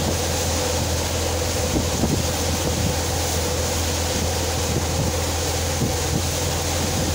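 Tractor-driven multicrop thresher (mini combine) running steadily while threshing soybean plants: a constant low hum from the tractor engine and threshing drum, with a dense rushing noise over it.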